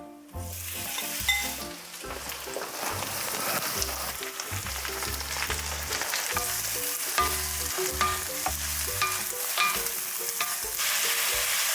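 Tofu stir-fry sizzling in a hot oiled pan while being stirred, with clicks and scrapes of the utensil against the pan. A music track with a stepping bassline plays underneath.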